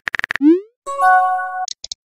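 Phone keyboard typing clicks stop, followed by a short rising pop as the message is sent. A brief chime of several held notes comes next, then a few small clicks.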